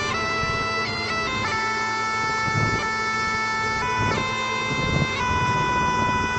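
Music led by a reedy wind-instrument melody that holds long notes and steps from one pitch to another. A rough low rumble runs underneath.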